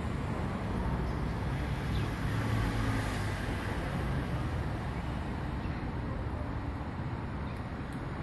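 Steady road traffic noise, with a vehicle passing and swelling about two to three seconds in.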